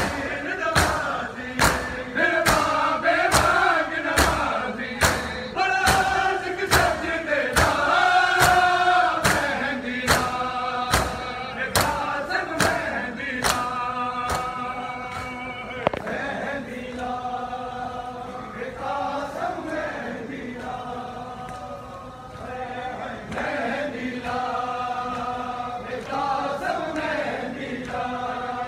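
A group of men chant a Muharram nauha (lament) in unison, with sharp, rhythmic chest-beating (matam) slaps about one and a half a second. The slaps stop about halfway through while the chanting goes on.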